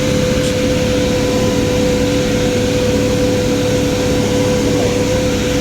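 Steady drone of a car's engine and road noise heard from inside the vehicle, with a constant whine over a low hum.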